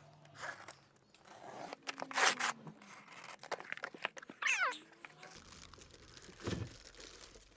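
Packaging being handled and pulled off parts: crinkling and rustling, loudest about two seconds in, with a short falling squeak about four and a half seconds in.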